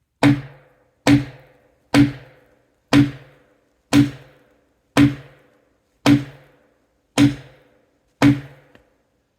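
Nine heavy blows, about one a second, driving a hatchet stuck in a log in like a splitting wedge to split it; each strike gives a sharp crack with a short ring.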